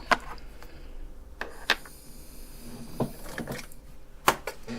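Handling of a small plastic battery tester on a bench: about half a dozen irregular sharp clicks and light knocks.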